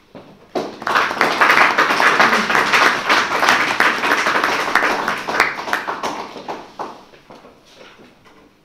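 Audience applauding: the clapping starts about half a second in, holds for several seconds, then dies away near the end.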